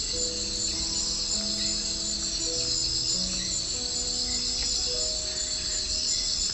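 A steady, dense chorus of insects trilling high and continuously, typical of a tropical rainforest soundscape, over soft, slow music with long held notes.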